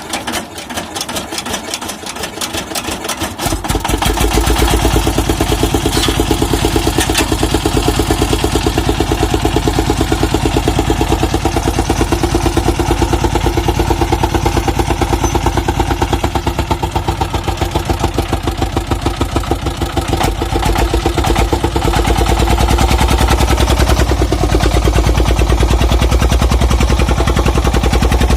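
Dong Feng single-cylinder diesel engine running with a rapid, even firing beat. It grows louder over the first few seconds, then is opened up about four seconds in and runs hard and steady.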